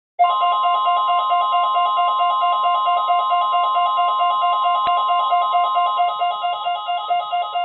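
NOAA Weather Radio warning alarm test: the steady 1050 Hz alarm tone starts suddenly about a quarter second in. Over it runs a fast alternating two-pitch electronic beeping, several beeps a second.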